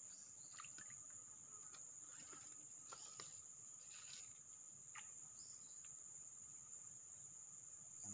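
Faint, steady high-pitched drone of forest insects, with a few faint short ticks.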